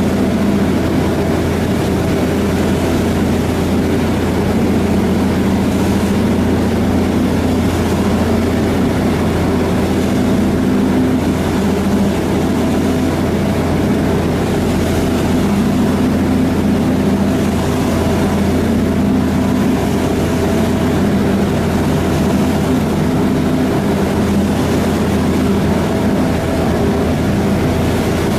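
Harbour ferry's engine running steadily at cruising speed, a constant low drone, with the rushing wash of its wake churning alongside the hull.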